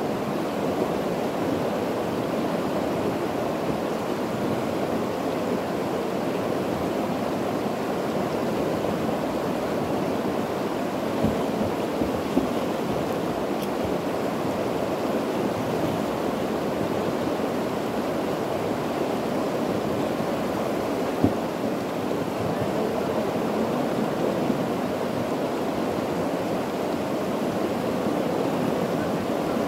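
Steady rush of flowing river water close to the microphone, with a few brief knocks in the middle.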